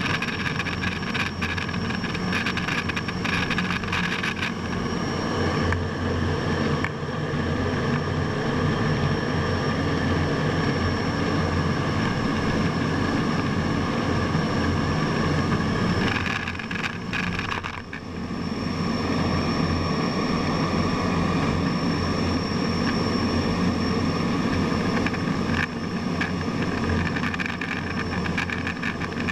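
Jet fighter in flight heard from inside the cockpit: a steady rush of engine and airflow noise with a constant high whine. It briefly drops in level about two-thirds of the way through.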